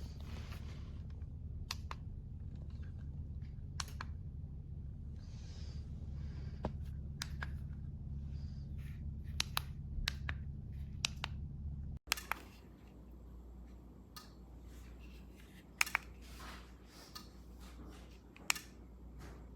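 Scattered sharp clicks and small handling knocks over a steady low hum. The hum drops and changes abruptly about twelve seconds in.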